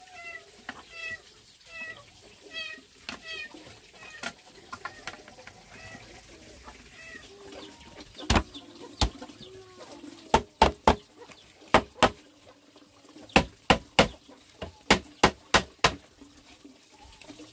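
Sharp knocks on bamboo, in pairs and quick runs through the second half, as a bamboo frame is being knocked together. Before them, short repeated chicken calls.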